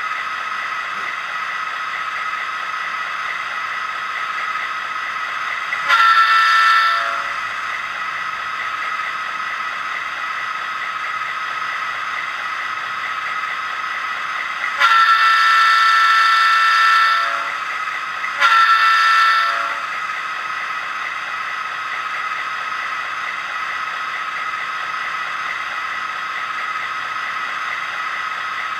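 LokSound 4 DCC sound decoder in an HO-scale SD45T-2 model locomotive, playing a diesel locomotive idling through its small speaker. Three horn blasts sound over it: a short one about six seconds in, a long one a little before the middle, and a short one right after.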